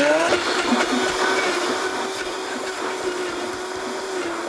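High-speed countertop blender spinning up and running, puréeing chopped fruit (mangoes, tomatoes, apricots) with buckwheat flour into a crepe batter. The motor whine rises quickly in pitch in the first half second, then holds steady.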